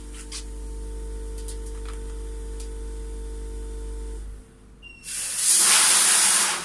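Vertical form-fill-seal packing machine humming steadily, then about five seconds in a 1 kg dose of coriander seed pours down the forming tube into the film bag as a loud hissing rush lasting about a second and a half, cutting off near the end.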